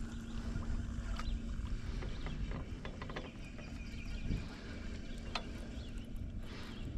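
Small fishing boat's motor running at low speed with a steady hum, with a few sharp clicks and knocks from the boat and fishing gear.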